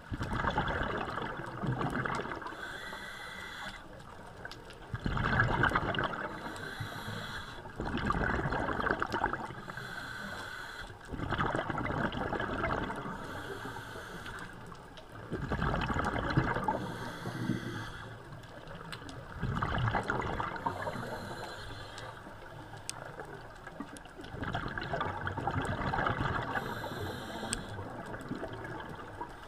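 A scuba diver breathing through a regulator, heard underwater: a bubbling rush of exhaled air about every four seconds, with a quieter hiss in between.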